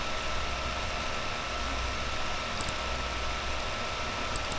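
Steady background hiss with a low hum and faint steady whine tones: the noise of an open microphone beside a running computer. Two faint double clicks, about halfway through and near the end, like mouse-button clicks.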